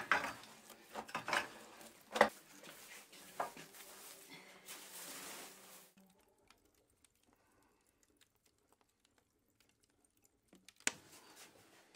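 Embers and ash being raked across the floor of a wood-fired bread oven with a long wooden-handled scraper: irregular scraping and crackling with a few sharp knocks. After about six seconds it gives way to near silence, with one sharp click near the end.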